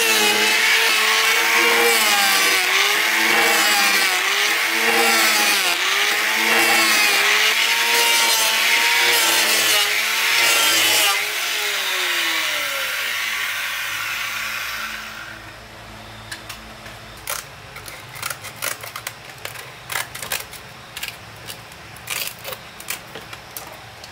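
Handheld electric planer shaving a hardwood plank, its motor pitch rising and falling about once a second with each pass. About eleven seconds in it winds down and stops, followed by a run of light clicks and taps.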